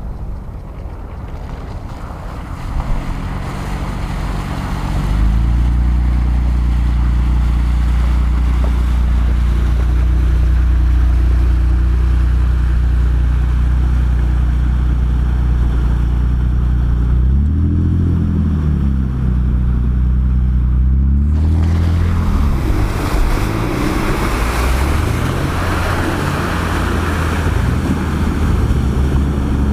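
4x4 SUV engines (first a Mercedes G-Class, then another SUV) working through deep mud and meltwater, the engine note rising and falling with the throttle in the second half, over splashing water and wind on the microphone.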